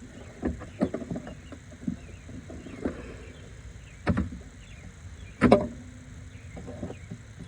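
Irregular knocks, clicks and clinks of hand tools and engine parts being handled during engine disassembly, with two louder clanks about four and five and a half seconds in.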